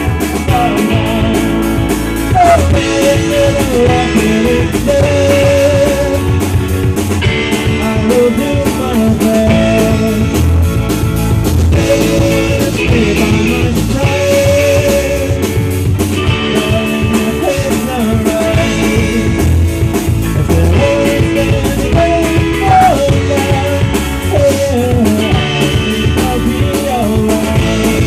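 A rock band playing live, a guitar line with bent notes over drums.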